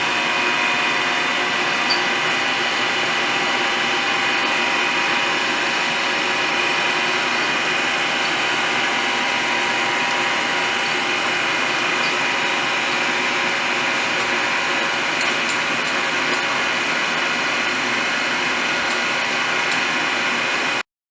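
K.O. Lee Model 3612 surface grinder running, its 1 hp three-phase spindle motor and 8-inch wheel turning at about 2850 rpm with a steady whine. It stops abruptly near the end.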